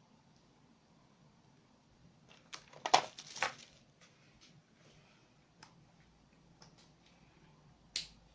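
A quick cluster of sharp clicks and knocks about three seconds in, then a single sharp click near the end; no buzzer tone sounds.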